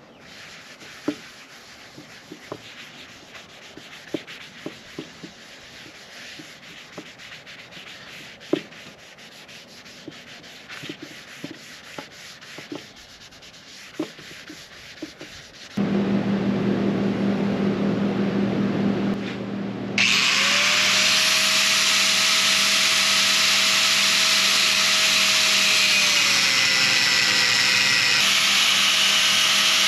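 A cloth rubbing by hand over a round wooden board, soft and scratchy, with scattered small clicks. About halfway through, an electric angle grinder starts and runs with a steady motor whine. A few seconds later it bites into steel tubing, and the sound turns louder and harsher, its pitch sagging under load near the end.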